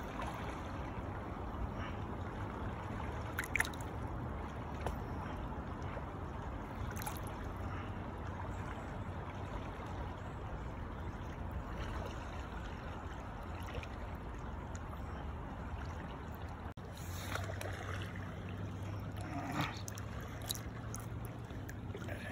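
Shallow stream water running steadily, with a few small splashes and clicks as a trout is handled in a landing net at the surface.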